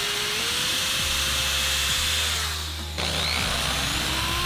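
Cordless drill driving screws through carpet: the motor whine holds its pitch, slows and stops about three seconds in, then spins up again on the next screw.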